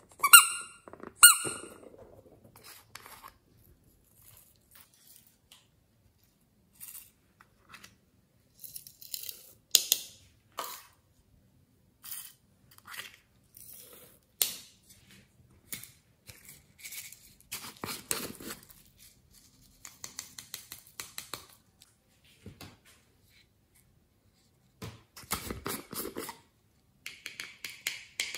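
Plastic novelty containers being handled: two sharp plastic squeaks near the start, then scattered clicks, taps and rustles as glitter and sequins are tipped out into a glass dish, with another squeak near the end.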